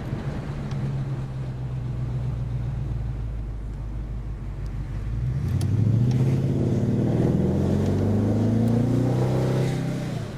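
Holden 308 V8 in a Series 2 Jaguar running at a steady low note, then at about five seconds put under hard throttle, its revs climbing steadily for about five seconds before the throttle is closed near the end.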